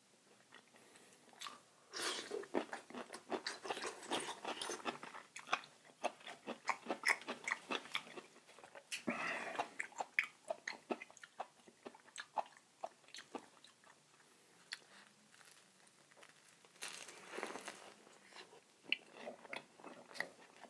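A person biting and chewing food close to the microphone: crunchy, moist mouth sounds with lip smacks, coming in bouts with a quieter spell a little past the middle.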